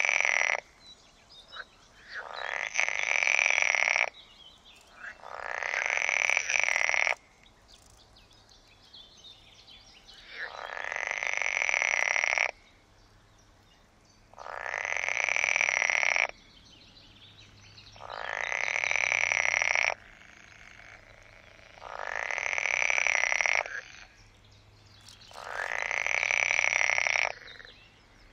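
European water frogs (green frogs) calling repeatedly, about eight long croaking calls of roughly two seconds each. Each call swells in loudness and then cuts off abruptly, with short pauses between calls.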